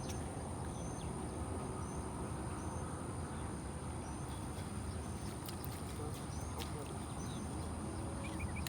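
Outdoor ambience by the water: a steady low rumble with a constant high thin drone and short high chirps repeating about once a second, typical of insects and small birds.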